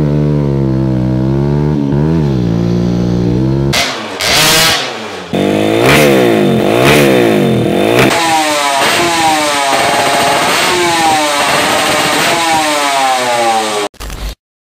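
Motorcycle engine revving over and over, its pitch climbing and dropping with each blip of the throttle, with a burst of noise about four seconds in. It cuts off abruptly near the end.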